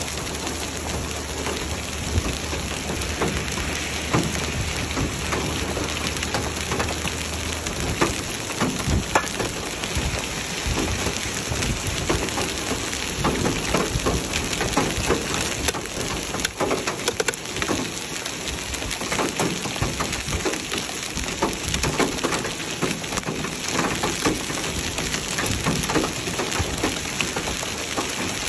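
Heavy rain mixed with hail pelting down: a dense, steady hiss with many sharp ticks of stones striking hard surfaces. A low rumble underneath stops about eight seconds in.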